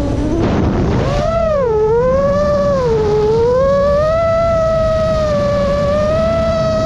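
Motors and propellers of a Chimera 7.5 FPV quadcopter whining in flight. The pitch swoops down and back up about a second in, dips again around three seconds in, then holds steady as the throttle changes.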